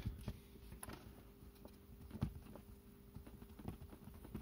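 A few small, sparse clicks and taps from tiny slot-car parts (axle, wheel and gear) being handled and set into a small metal gear-press tool.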